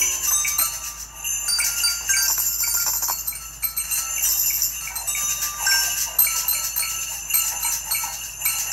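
Jingle bells, a jingle-bell stick and maracas shaken by a small group in an uneven jangle, with scattered short bell tones.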